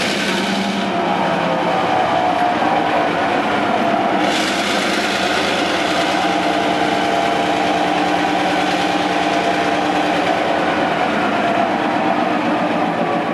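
EMD 12-567C two-stroke V12 diesel engine of a 1956 NOHAB-built SJ T41 locomotive running loudly and steadily with the locomotive standing still.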